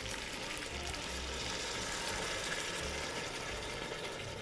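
Water pouring steadily from a glass jug into a stainless-steel pot of potatoes, a continuous splashing pour.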